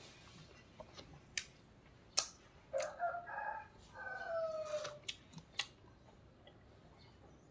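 A rooster crowing once in the background, a call of about two seconds that ends on a long falling note, heard faintly along with a few sharp mouth and eating clicks.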